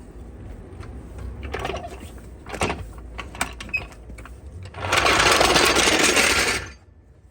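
A jack being let down under a car: a few clicks and knocks, then a loud hiss lasting about two seconds that cuts off suddenly, over a low steady hum.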